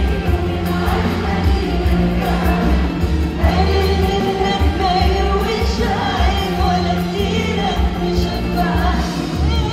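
Female singer performing an Arabic song live into a microphone with a backing band: an ornamented, wavering vocal line over a steady bass beat.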